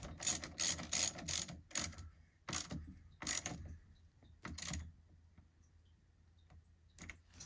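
Hand ratchet with a 10 mm socket clicking in quick runs as it tightens a battery terminal clamp nut, the clicks stopping about five seconds in.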